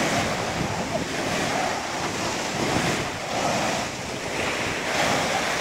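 Waves breaking and washing up a sandy beach in the shallows, a steady rushing surf that swells and eases, with wind buffeting the microphone.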